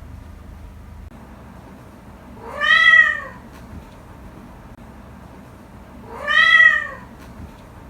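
A cat yawning out loud, a drawn-out meow-like cry that rises and then falls in pitch. It comes twice, each about a second long.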